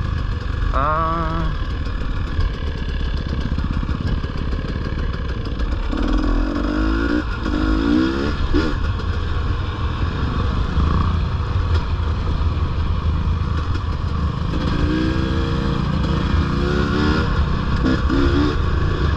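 Dirt bike engine running while being ridden, revving up and falling back with the throttle: a rise about a second in, a run of revs from about six to eight seconds, and another from about fifteen to eighteen seconds.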